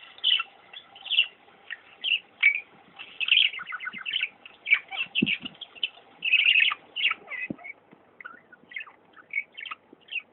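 A sleeping pet making rapid, irregular high squeaky chirps, the sound the owner calls its snoring, with a couple of brief low thumps partway through.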